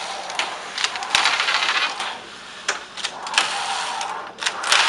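Flat knitting machine at work: the carriage traverses the needle bed with a rattle of metallic clicks. Denser rattling passes come about a second in and again near the end, with single clicks between.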